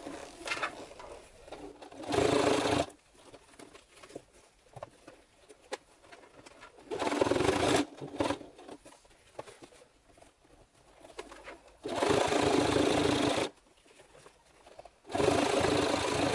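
Brother electric sewing machine stitching through a leather glove in four short runs, the later ones longer, up to about a second and a half. Faint handling clicks come between the runs as the material is repositioned.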